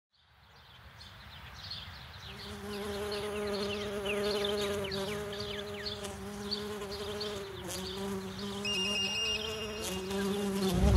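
A bee buzzing as a sound effect: a steady drone that fades in over the first two seconds and grows louder as the bee approaches, with quick falling chirps above it.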